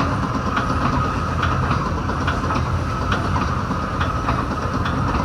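Metra commuter train riding at speed, heard from inside the coach: a steady low rumble with irregular clicks from the wheels over the rail joints and a faint steady high whine.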